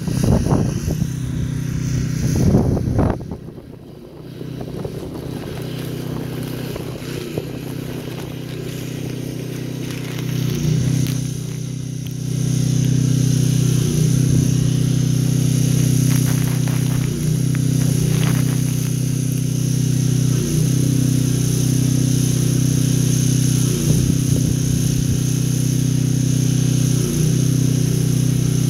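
Pressure washer engine running at a steady speed, a constant hum that gets louder about twelve seconds in.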